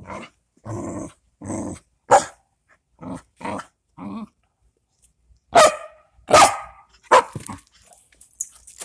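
Dog growling and barking in short, repeated bursts while it plays tug-of-war with a rope toy, the loudest barks a little past the middle.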